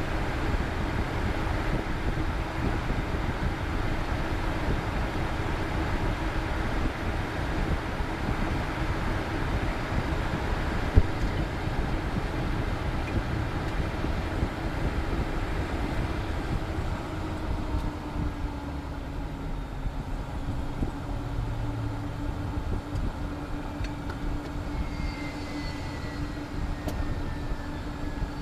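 Cessna Citation Bravo's Pratt & Whitney PW530A turbofan engines running at ground idle, heard inside the cockpit as a steady rush with a low hum. There is a single click about eleven seconds in, and near the end a high whine falls in pitch.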